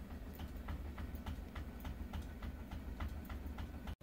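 Faint, regular ticking, about four to five clicks a second, over a low steady hum; the sound drops out for an instant near the end.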